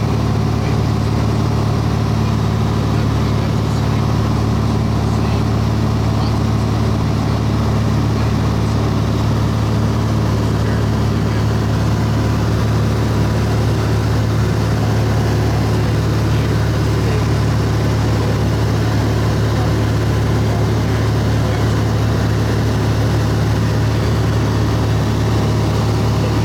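Airplane engine drone in flight, heard from inside the cabin: a loud, steady, unchanging hum with a strong low tone.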